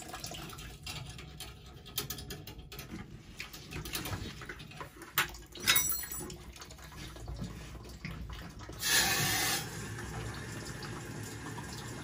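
Water draining from a steam boiler fitting into a plastic bucket, with scattered clicks and a couple of sharp knocks from the bucket and tools, and a brief louder rush about nine seconds in.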